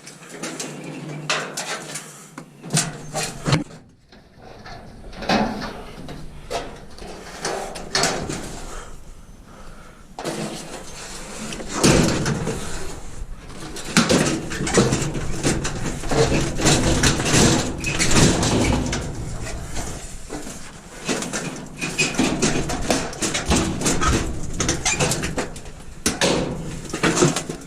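Irregular clanks, knocks and rattles of scrap metal being handled and loaded, with many separate impacts.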